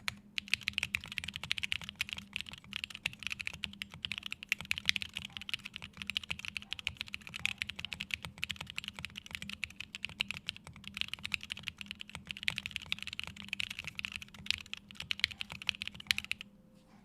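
Continuous fast typing on a mechanical keyboard with aluminium keycaps and lubed, filmed SP-Star Sacramento switches. The typing stops near the end.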